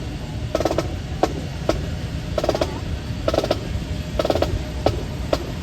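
Snare drum beating a drill cadence: a short roll about once a second, with single sharp taps in between, over a steady low rumble of wind on the microphone.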